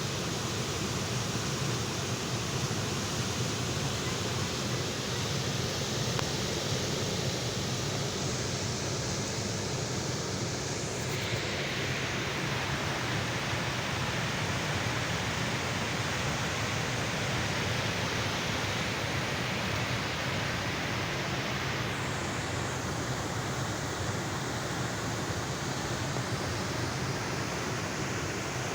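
Rushing floodwater in a swollen stream after heavy rain: a steady, even rush of fast-moving water that grows brighter and hissier for about ten seconds in the middle.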